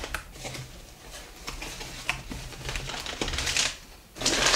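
Cardboard shipping box being opened by hand: a string of sharp clicks and scrapes as the flaps and tape are pulled apart, then a louder rustle of cardboard about four seconds in as an item is lifted out.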